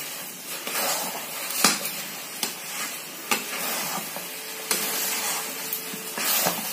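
Spatula stirring and scraping thick, sizzling semolina halwa in a metal pan, with a few sharp knocks of the spatula against the pan.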